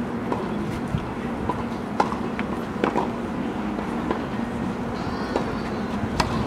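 Tennis ball bouncing on a hard court a few times as the player prepares to serve, then a sharp racket strike on the serve about six seconds in, over a steady low hum.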